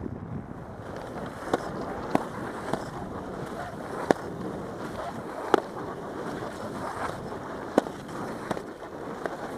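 Skis sliding and scraping over hard, tracked-up piste snow: a steady rough hiss broken by several sharp clicks at uneven intervals.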